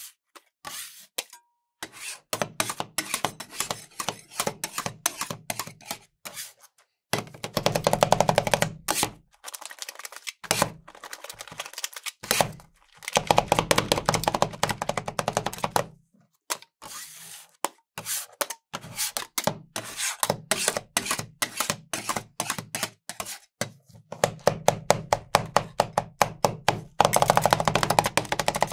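Metal spatulas rapidly chopping and scraping on a frozen steel ice cream plate, chopping Takis tortilla chips into the ice cream mixture. The strikes come in quick runs with brief pauses between them.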